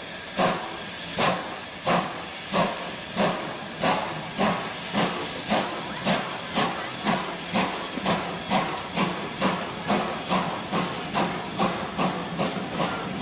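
Steam tank locomotive's exhaust beats as it pulls away with its carriages, sharp rhythmic chuffs with a hiss of steam. The beats quicken from about one and a half a second to over two a second as it accelerates.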